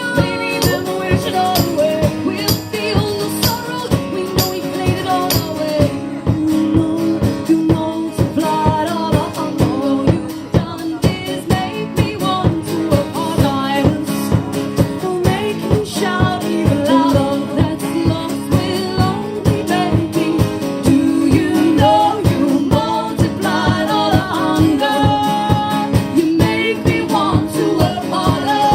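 Live band music: guitar playing over a steady, even beat, with singing.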